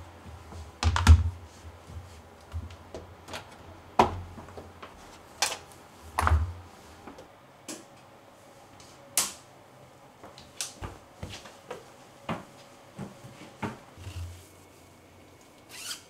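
Irregular knocks, clicks and a few dull thumps from carrying and handling a plastic laundry basket of washed curtains on a tiled floor. The loudest thumps come about a second in and about six seconds in.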